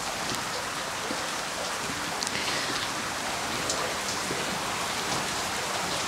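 Brine trickling and dripping down the blackthorn brushwood walls of a salt graduation tower, a steady rain-like patter with a few sharper drips.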